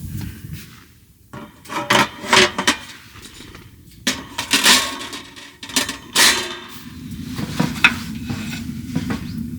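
Hard objects being handled with a series of sharp clatters and scrapes, like camping cookware, over a steady low background noise.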